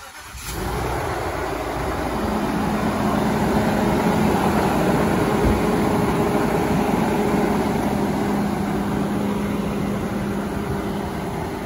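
Ford E-450 motorhome engine, jump-started from a portable jump pack, catching about half a second in and then idling steadily.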